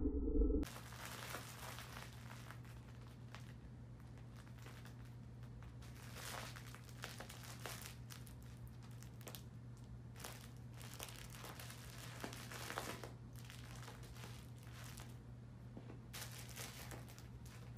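A cat wrestling and bunny-kicking a stuffed carrot toy, making faint, irregular crinkling and rustling in bursts, over a steady low hum.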